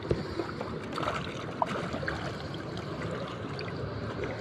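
Shallow seawater sloshing and splashing around a person's legs and a net as they wade, with scattered small ticks.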